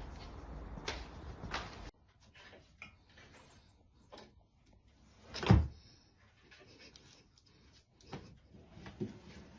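A few sharp clicks and light knocks, with one loud dull thump about five and a half seconds in.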